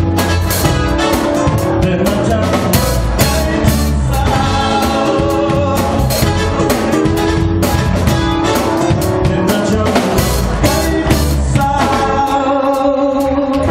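Live band music from keyboard, drum kit and guitar, with a man singing into a microphone over a steady drum beat.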